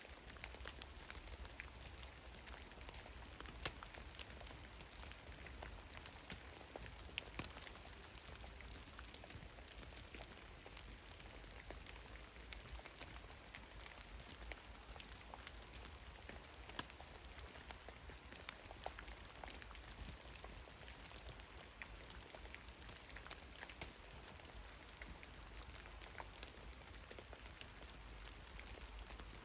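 Meltwater drops falling from melting snow in a forest: scattered, irregular light taps over a faint steady hiss, with a low steady rumble underneath.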